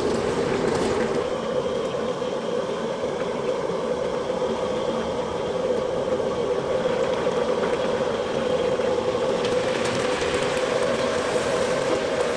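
Hot oil in a wok sizzling as batter-coated chicken pieces deep-fry, over a steady low hum. The hiss grows stronger near the end.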